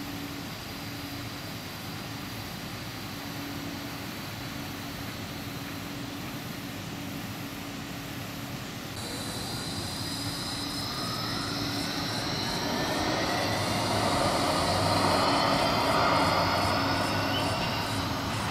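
Gold Coast light-rail tram (Bombardier Flexity 2) pulling away from a stop: a steady low hum, then from about halfway its electric traction drive whining in several tones that rise in pitch together as it accelerates. It grows louder and eases off near the end.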